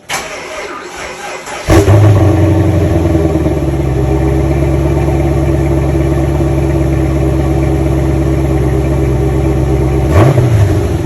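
2010 Chevrolet Camaro SS's 6.2-litre L99 V8 on its stock intake cranking for under two seconds, then catching and settling into a steady idle, a cold first start after winter storage. About ten seconds in there is one quick blip of the throttle, rising and falling in pitch, before it drops back to idle.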